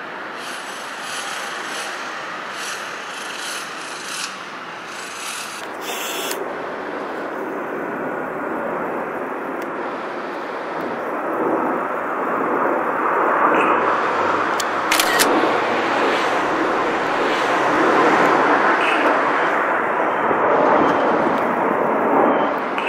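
Jet engine noise from a formation of five AIDC F-CK-1 Ching-kuo (IDF) fighters passing overhead: a rushing noise that builds from about six seconds in and is loudest in the second half.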